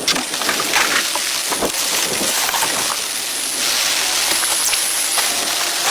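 Steady rain hiss, with scattered sharp knocks and taps in the first half; the hiss grows louder about three and a half seconds in.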